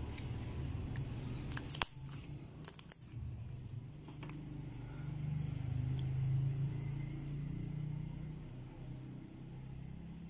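Glossy slime being stretched and pulled by hand, with wet, sticky crackling and a few sharp pops about two and three seconds in. A low rumble runs underneath, swelling in the middle.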